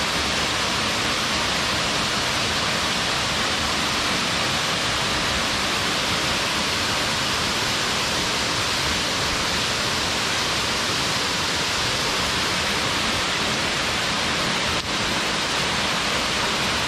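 Waterfall: falling water rushing steadily in an even, unbroken hiss.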